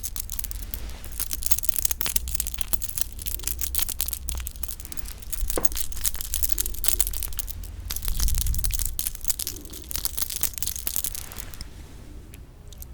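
Close-miked chewing of sundae (Korean blood sausage): a dense run of sticky, crackling mouth sounds that thins out near the end.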